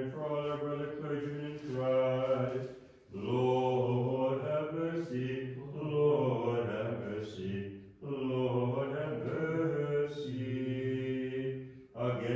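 Orthodox liturgical chanting: a low voice chants on a nearly level reciting tone in long phrases of a few seconds, with short breaks between phrases about three and eight seconds in.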